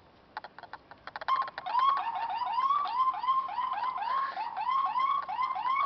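Police siren in yelp mode: quick rising-and-falling wails, about three a second, starting about a second and a half in after a run of sharp clicks.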